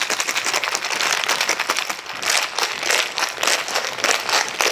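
Ice cubes rattling inside a cocktail shaker as it is shaken fast and hard, a continuous rapid clatter. This is the shaking step that chills the cocktail.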